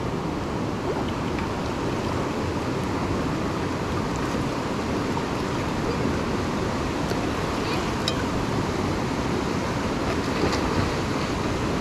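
A river rushing over rocks, a steady roar of flowing water, with a few faint clinks of metal tongs against a cast-iron skillet.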